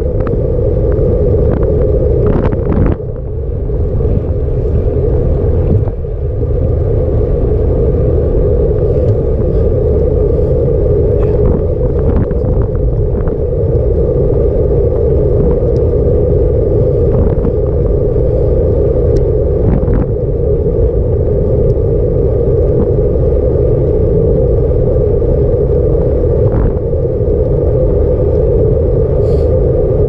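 Steady wind rush and road rumble on a handlebar-mounted camera riding a bicycle along smooth pavement, with brief drops in level about three and six seconds in and a few light clicks.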